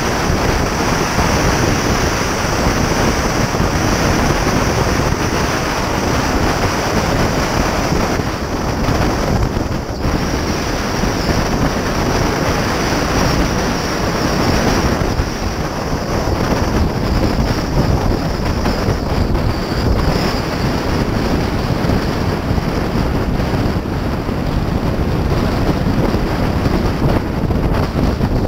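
Steady wind rush buffeting a camera mounted on the front lid of a car moving at highway speed, mixed with tyre and road noise. No engine note stands out above the wind.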